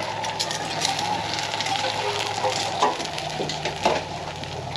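Food sizzling and crackling in a hot pan on the stove, a steady frying hiss full of small pops. Two sharper knocks sound about three and four seconds in.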